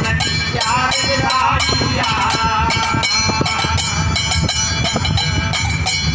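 A man singing a folk devotional song, accompanied by a steel plate (thali) struck with a steel tumbler in a quick, steady beat, each strike ringing metallically.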